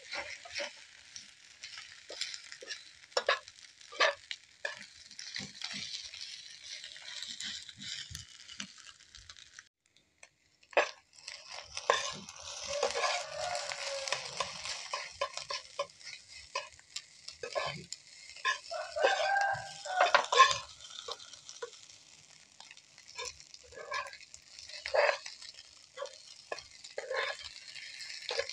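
Fried rice sizzling in a frying pan as it is stirred and tossed with a spatula, the spatula scraping and tapping on the pan again and again. The sizzle breaks off for about a second around ten seconds in.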